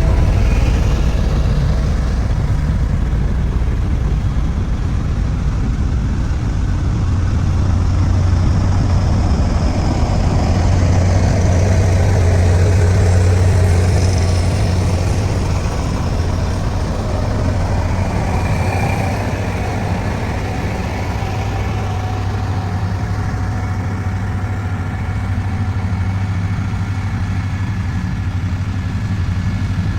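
Heavy road-construction machine's diesel engine running steadily, with a strong low hum.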